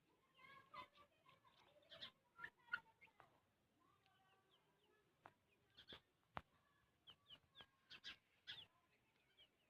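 Black francolin chicks peeping: many short, high chirps that slide downward, in two busy spells with a quieter gap between them, mixed with a few sharp taps.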